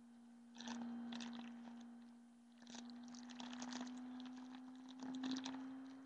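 A baby's soft fabric toy rustling and crinkling as it is handled, in three short spells, over a faint steady hum.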